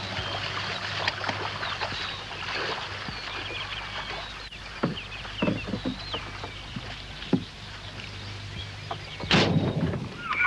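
Small boat on the water: scattered wooden knocks and water noise over a steady low hum, with faint bird calls, and one louder, sharper noise burst about nine seconds in.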